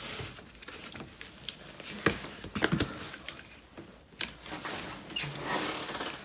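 A few sharp clicks and knocks, the loudest about two seconds in and a pair shortly after, from hands working one-handed bar clamps on a steel bush-pressing jig, with softer handling noise later.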